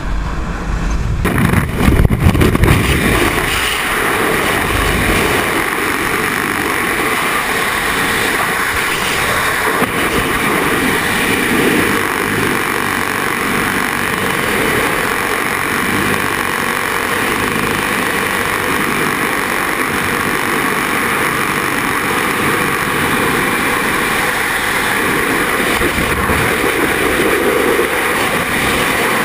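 Light-aircraft cabin drone through the open door, then, from about a second in, the loud, steady rush of freefall wind buffeting the camera's microphone during a tandem skydive.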